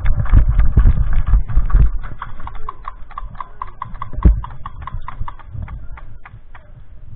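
Footsteps on hard dirt picked up by a body-worn camera: heavy thumping and rumble from running for about the first two seconds, then lighter, regular steps about three a second, with one sharp knock about four seconds in.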